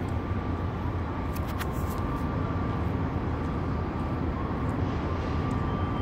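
Steady low rumble of city street traffic, with a faint steady high hum running through it.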